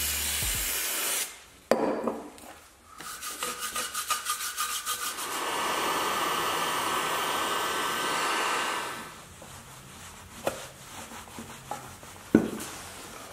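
A short spray hiss at the start, then a cloth or pad scrubbing a cast-aluminium tail-light housing: quick back-and-forth strokes at first, then a few seconds of steady, louder scrubbing. After that it eases to lighter rubbing with a couple of small knocks.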